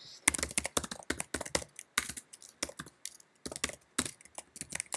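Typing on a computer keyboard: a run of quick, uneven keystrokes, thinning briefly about halfway through.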